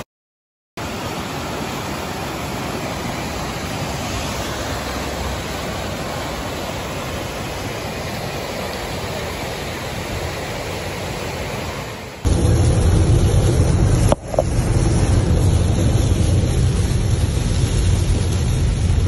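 Heavy rain falling as a steady, even hiss. About twelve seconds in, a cut brings louder noise with a strong low rumble, broken by a brief dropout a couple of seconds later.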